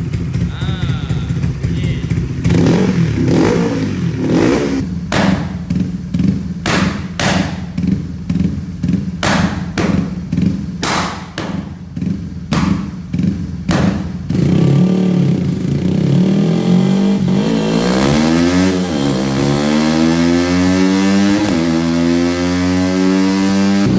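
Tuned Honda RS150R single-cylinder four-stroke motorcycle engine running through a cut-down stock exhaust. For the first half it is blipped again and again in short quick throttle stabs, then it is revved up and held high, the pitch climbing, dipping once about two thirds in and climbing again.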